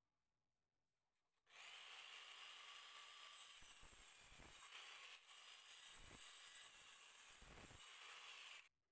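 Electric circular saw running and cutting through a teak board: a steady, loud whine with a few brief deeper surges as the blade takes the cut. It starts abruptly about a second and a half in and cuts off abruptly near the end.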